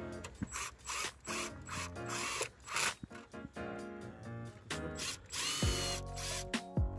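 Cordless drill-driver with a 10 mm deep socket running in several short trigger bursts, driving in the battery hold-down bolts.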